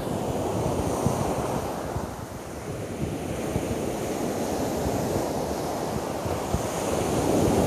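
Ocean surf breaking and washing up a sandy beach, swelling louder near the end as a wave comes in, with wind buffeting the microphone.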